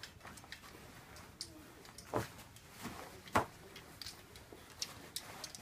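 Quiet room tone broken by a few scattered clicks and soft knocks, with one sharper knock a little past halfway.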